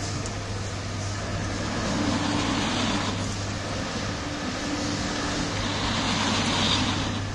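Automatic cup filling and sealing machine running: a steady low motor hum under a constant mechanical whirr.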